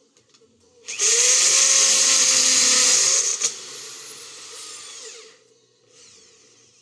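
A power tool's motor starts about a second in and runs loud and steady for about two seconds. A click follows, then the tool runs much quieter and stops a little after five seconds.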